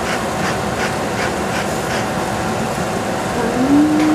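Steady mechanical hum and hiss with a constant tone. Over it, a wooden spoon scrapes and taps in a stainless steel pot as food is stirred, about three strokes a second, stopping about halfway through. A short hummed voice-like note sounds near the end.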